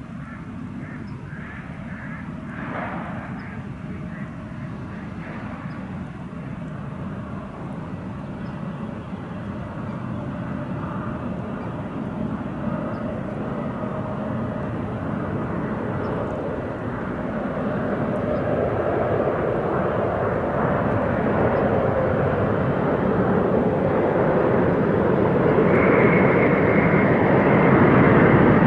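Boeing 747 jet engines running as the airliner comes in to land, growing steadily louder as it approaches, with a high steady whine joining near the end.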